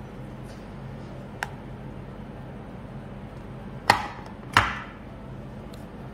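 Hard plastic slime tubs being put down in a metal tray: a light click, then two sharp knocks less than a second apart, over a steady low hum.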